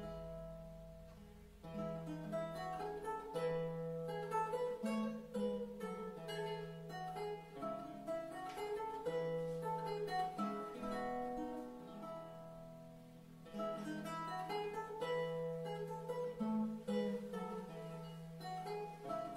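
Renaissance lute playing a solo piece: a plucked melody over bass notes, with a brief softer passage about two-thirds of the way through.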